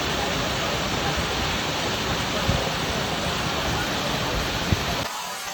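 Waterfall rushing, a steady dense roar of falling water, with two brief thumps partway through. Near the end it cuts off abruptly to a quieter, thinner hiss.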